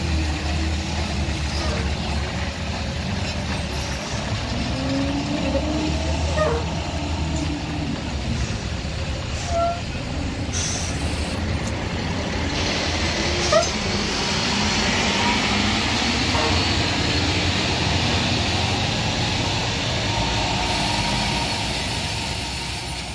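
Heavy trucks' diesel engines running with a steady low rumble; from about halfway a loud hiss of air joins in and holds until near the end, with one sharp knock just after it starts.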